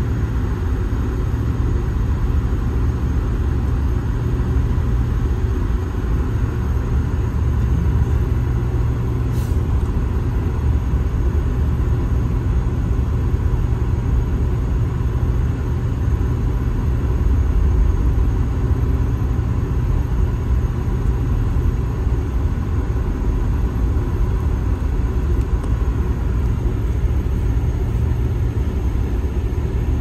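Steady low rumble of a car driving over a snow-covered road, heard from inside the cabin: engine and tyre noise with no change in pace.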